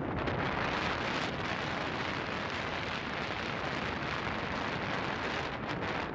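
Steady rushing wind noise on the microphone of a vehicle moving along a road.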